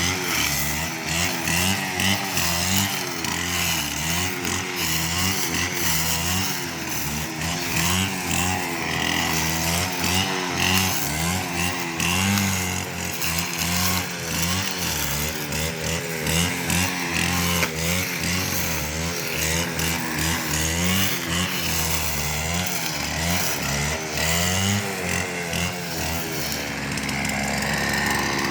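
Stihl FS 550 brushcutter's two-stroke engine running, its speed rising and falling about once a second as the throttle is worked, then dropping to a steadier, lower pitch near the end.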